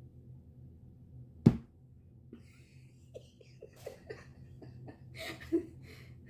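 A single sharp smack of a palm on the plastic opener cap of a Ramune soda bottle about a second and a half in, an attempt to force the glass marble seal down into the bottle. Laughter and giggling follow in the second half.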